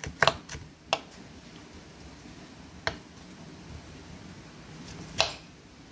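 Kitchen knife slicing onion and striking a wooden cutting board: about five sharp knocks, unevenly spaced, the loudest a little past five seconds in.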